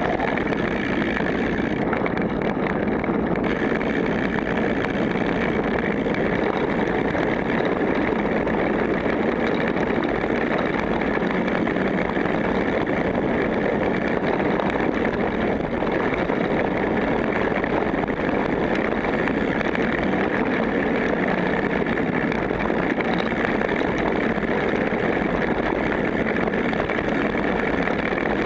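Steady rushing noise of a bike rolling fast down a dirt trail: wind on the microphone mixed with the tyres' rumble over the ground.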